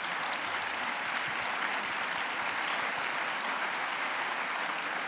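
Audience applauding steadily, an even clapping that holds at one level throughout.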